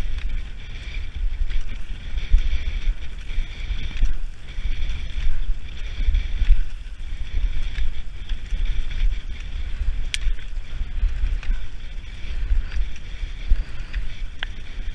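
Wind buffeting the microphone of a camera worn by a skier moving at speed, a steady low rumble, over the continuous hiss of skis and poles on snow. One sharp click about ten seconds in.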